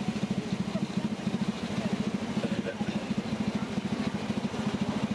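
A 7¼ inch gauge miniature steam train running, heard from a passenger carriage just behind the locomotive: a fast, even beat of about ten pulses a second.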